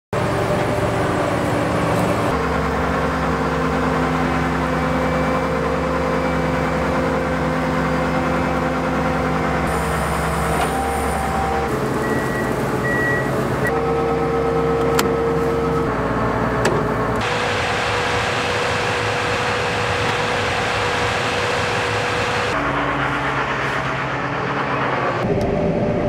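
Fendt IDEAL 7T combine harvester running: a steady engine and machinery hum whose pitch and mix change abruptly every few seconds.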